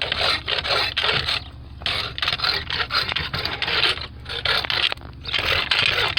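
A hula hoe's metal blade scraping paint off a hard surface in quick, repeated strokes, with short pauses about one and a half, four and five seconds in.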